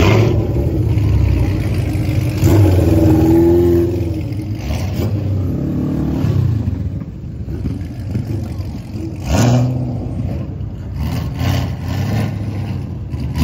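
Car engines idling with a low, steady rumble, with a few brief revs.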